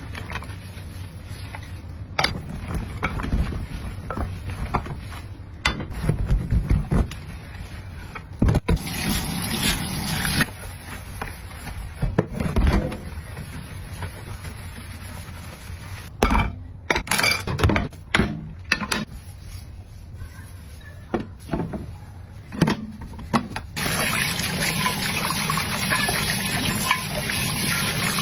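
Dishes being washed by hand: scattered knocks and clinks of plates, pots and utensils being handled. Near the end a tap starts running steadily.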